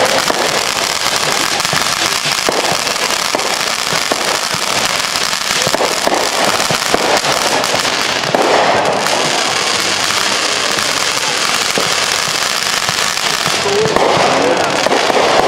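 Aerial fireworks bursting in quick succession: a continuous run of bangs and crackling with no pause.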